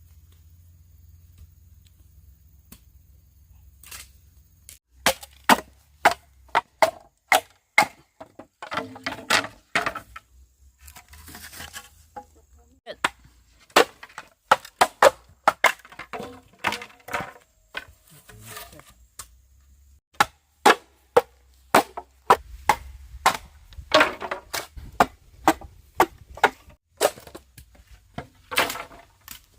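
Bamboo being chopped: sharp, cracking blade strikes into the cane, irregular at about one to two a second, starting about five seconds in.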